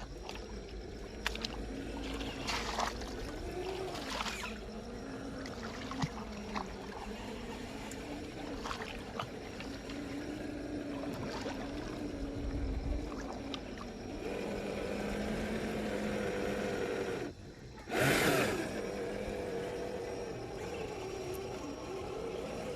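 Traxxas TRX4 RC crawler's 550 brushed motor and geartrain whining, the pitch rising and falling with the throttle, with scattered knocks of tyres and chassis on rocks. Late on, a short loud rush of noise, typical of a splash or a hard scrape.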